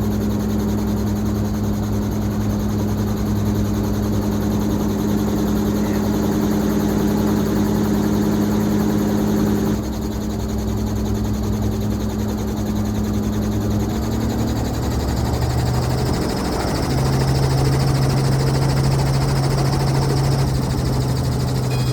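Helicopter engine and rotor running, a steady loud hum over a noisy wash. About two-thirds of the way through, the hum shifts and settles at a lower pitch.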